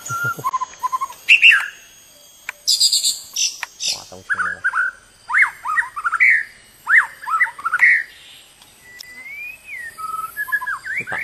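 White-rumped shama singing: a varied run of clear whistled phrases that glide up and down, broken by short pauses. A burst of high, rapid notes comes about three seconds in, and a longer rising-and-falling whistle comes near the end.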